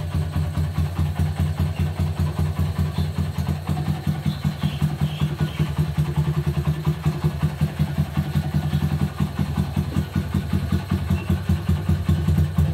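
Honda CB100's single-cylinder four-stroke engine idling steadily with an even, pulsing beat.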